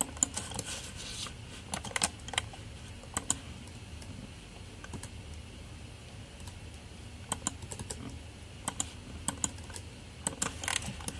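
Computer keyboard keys and mouse buttons clicking in short scattered clusters, the sound of shortcut keys and clicks while editing a 3D model.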